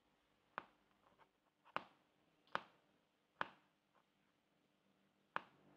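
Kitchen knife slicing a banana thinly, the blade tapping the cutting board with each cut: five short sharp taps about a second apart, with a longer gap before the last.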